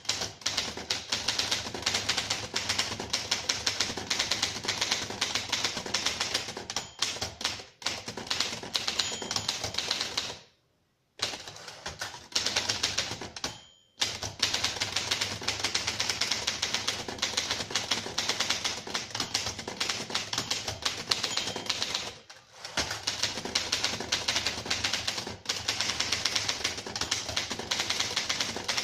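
1937 Rheinmetall portable typewriter being typed on: rapid, continuous keystroke clacking, broken by two short silences about ten and fourteen seconds in.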